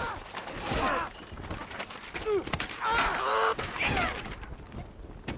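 Commotion of several people shouting and exclaiming at once, with thumps and knocks of things being banged about.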